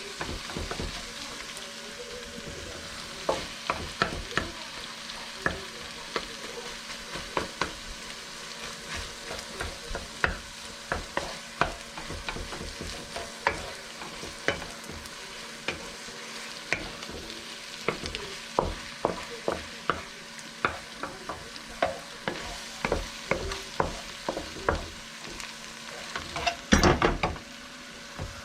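Fried rice stir-frying in a hot pan: a steady sizzle with frequent scrapes and taps of a cooking utensil against the pan, and a louder clatter near the end.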